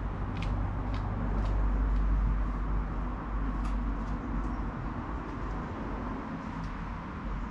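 Stage 5+ tuned Nissan GT-R R35's twin-turbo 3.8-litre V6 idling just after a cold start: a low, steady rumble with a few faint clicks over it.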